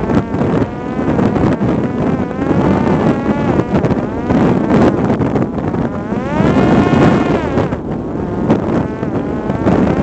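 Parrot Disco drone's electric motor and propeller whining, its pitch rising and falling as the throttle changes, climbing to a peak and dropping back about seven seconds in. Heavy wind buffets the microphone.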